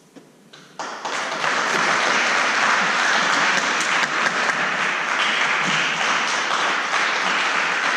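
Audience applause, breaking out suddenly about a second in after a brief quiet at the close of a performance, then going on steadily.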